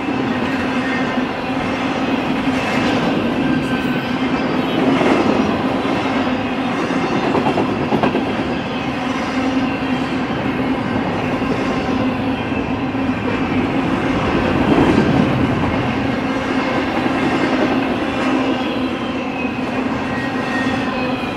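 Double-stack intermodal freight cars rolling past on steel wheels: a steady rumble with the clickety-clack of wheels over the rail, swelling a little around five and fifteen seconds in.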